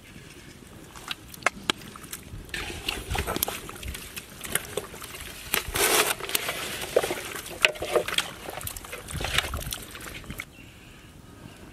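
Wet squelching and sloshing of hands mixing raw chicken legs in a thick egg-and-spice marinade in a metal basin, with irregular sharp clicks; the mixing eases off near the end.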